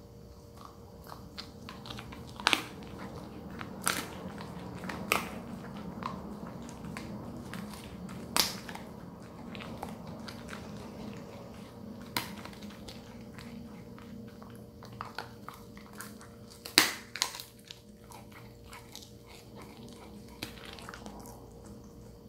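Welsh corgi chewing and gnawing a lamb-neck treat, with sharp crunches every few seconds; the loudest come about seventeen seconds in.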